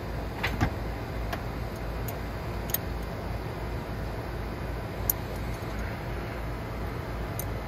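A steel wrench clicking and clinking against the manual shifter's mounting bolts as they are worked loose by levering against the shifter handle. It gives a handful of short, separate metal clicks, the sharpest pair about half a second in, over a steady low rumble.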